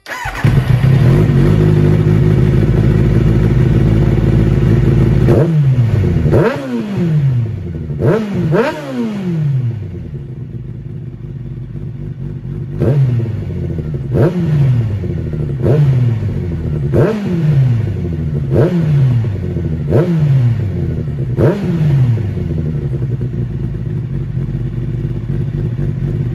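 Kawasaki Ninja ZX-9R inline-four engine running through a WR'S slip-on exhaust silencer, blipped by hand at the throttle. It runs fast and steady at first, gets a few quick revs about five to nine seconds in, then settles into a regular series of throttle blips about every second and a half, each rising and dropping back to idle.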